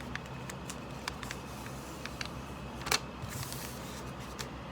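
Sheet of printer paper being folded and creased by hand: scattered light crackles, one sharper crackle about three seconds in, then a brief rustle.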